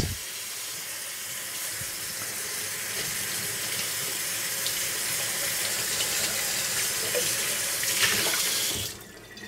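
Kitchen tap running hot water into the sink to wash utensils. The water noise is steady and grows a little louder, then stops abruptly when the tap is shut off near the end.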